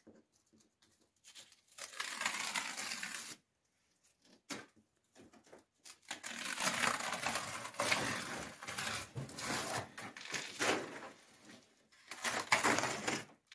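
Old layered wallpaper being peeled and torn away from plaster by hand. It comes in three stretches of tearing paper, the longest about five seconds, with short crackles between.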